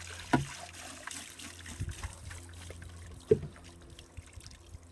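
Water poured over leaf litter on a screen sieve, trickling through as it washes out sand and silt, heaviest in the first second or so. Two sharp knocks about three seconds apart are the loudest sounds.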